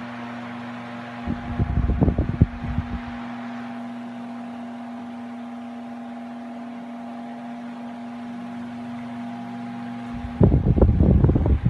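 Ventisol VOC 60 cm 200 W pedestal fan running: a steady motor hum under a rush of moving air. Its airstream buffets the microphone in low rumbling gusts, once about a second and a half in and again near the end.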